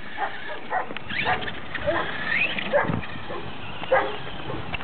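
An animal's short yips and whines: about eight scattered pitched calls, with one rising whine about two and a half seconds in.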